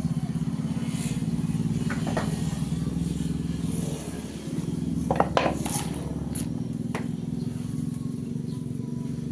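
A motor running steadily with a low hum, with a few light metallic clinks about two, five and seven seconds in.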